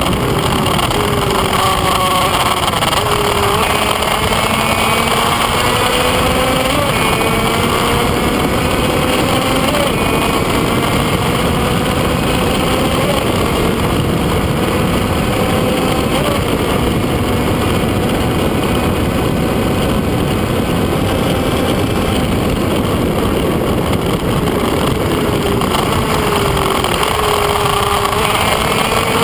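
Kreidler Van Veen racing motorcycle's small two-stroke engine at full throttle on track, its whine rising in steps through the gears in the first few seconds, held high through the middle and shifting again near the end. Heavy wind rush on the onboard microphone covers much of the engine.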